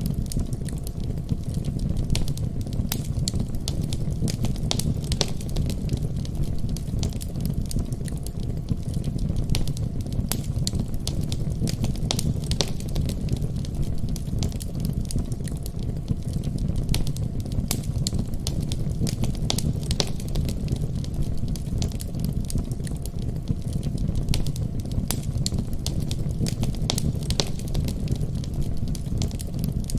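Fireplace fire crackling, with irregular sharp pops and snaps over a steady low rumble.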